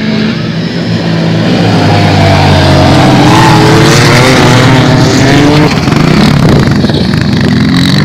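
Racing quad bike's engine coming on at high revs, growing louder about two seconds in and staying loud, its pitch rising and falling.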